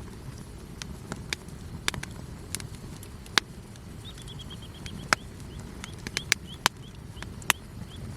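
Campfire wood crackling, with sharp pops at irregular moments over a low, steady rumble.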